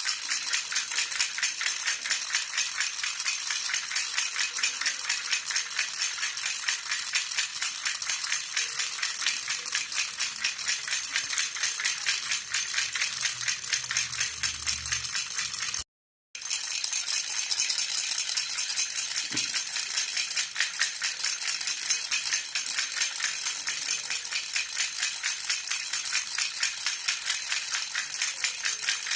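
A jhunjhuna baby rattle shaken steadily in a fast, even jingle. It cuts out completely for a split second a little past halfway, then carries on.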